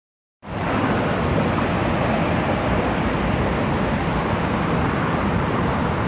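Steady noise of highway traffic, starting about half a second in.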